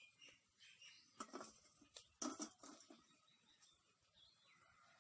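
Near silence: a few faint rustles and soft knocks, between about one and three seconds in, as a steel plate of fried pakoras is handled. A faint bird call comes near the end.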